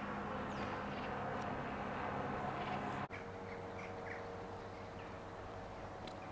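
Outdoor railside background: a steady hum with a low drone that cuts off abruptly about three seconds in, followed by a quieter steady hum with a few faint bird chirps.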